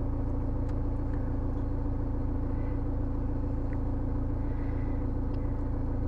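Steady low hum of the BMW E90 running, heard from inside the cabin, with a few faint clicks of laptop keys.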